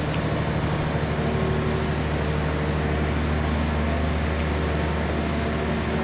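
Diesel engine and hydraulics of a 52 m truck-mounted concrete pump running steadily under load while the boom unfolds, a low engine drone whose pitch shifts slightly partway through.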